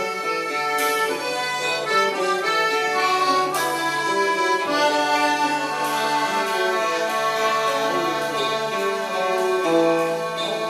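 Instrumental folk music from a live band: a squeezebox (accordion-type free-reed instrument) plays the tune over sustained bass notes, with a few sharp accented chords.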